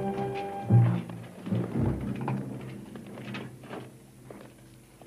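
Dramatic score ending on a held chord, cut off within the first second, followed by two deep rumbling thumps. Then comes a fading patter of footsteps on a stone floor.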